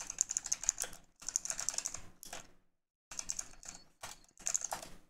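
Fast typing on a computer keyboard: several bursts of quick key clicks with short pauses between them.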